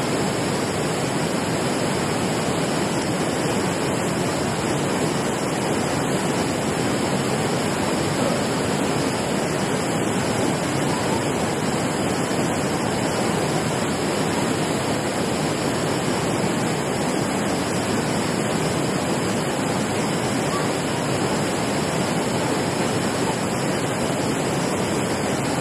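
Steady rush of water pouring over a low concrete weir, an even, unbroken roar of white water.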